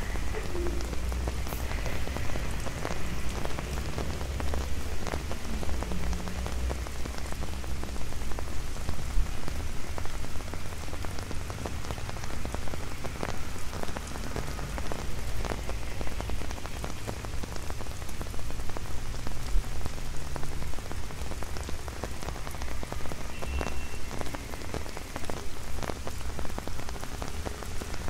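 Rain falling on an umbrella overhead: a dense, irregular stream of small drop taps over a steady wash of rain, with a low rumble underneath.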